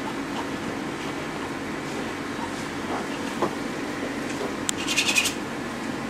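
Palette knife working oil paint on a canvas: faint scrapes and taps, then a brief run of rapid scratchy strokes about five seconds in, over a steady room hum.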